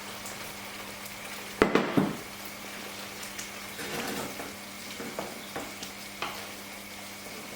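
Curry sauce sizzling in a pan as pieces of cooked tandoori chicken are stirred in. A utensil knocks sharply against the pan twice about two seconds in, with softer scrapes and clicks after that.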